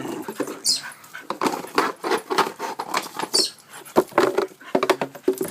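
Dogs playing, with a busy run of quick scuffling, short taps and clicks.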